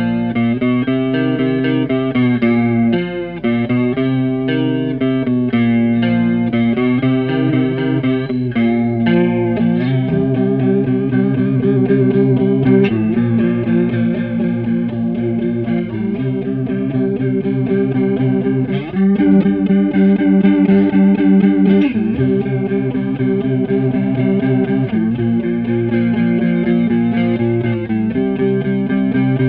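Electric guitar, a Squier Starcaster on its neck pickup, playing a riff through a Stoy Sound Choir Boy bucket-brigade analog chorus pedal, with a Boss BD-2 Blues Driver adding mild overdrive. The chorus gives the notes a wavering, shimmering pitch.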